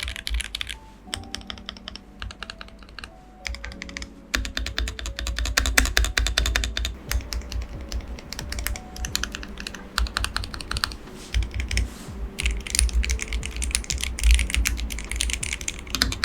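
Typing on an Asus ROG Azoth, a 75% gasket-mounted mechanical keyboard with foam dampening inside and pre-lubed ROG NX switches. The keystrokes come sparsely for the first few seconds, then fast and continuous, with no ping, echo or hollowness. Background music plays underneath.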